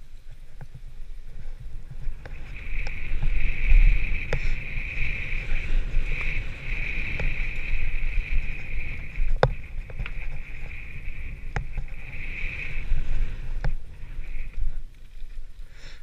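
Mountain bike descending a dirt trail at speed: constant low rumble of tyres on dirt and wind on the microphone, with a high steady buzz from about two seconds in until near the end, the rear hub freewheeling while coasting. Sharp clicks and knocks from the bike over the bumps now and then.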